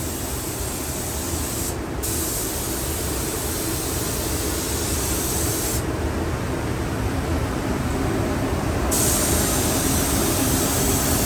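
Air spray gun hissing steadily as it sprays primer, the hiss cutting off briefly about two seconds in and again for about three seconds midway as the trigger is let go, over a steady low rumble.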